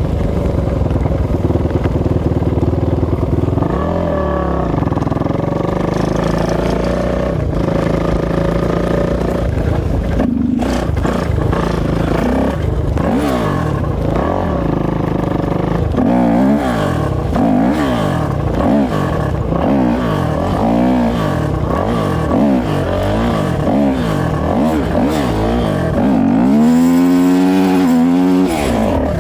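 450cc single-cylinder four-stroke off-road engine being ridden hard, revving up and down over and over as the throttle is worked, about once a second in the second half, with a longer high rev near the end.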